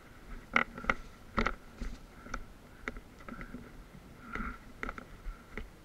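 Footsteps on rubble and gravel, irregular at about two a second, with small knocks and rattles of carried gear.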